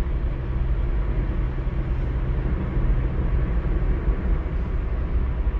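Steady low rumble of vehicle and road noise, with no distinct events.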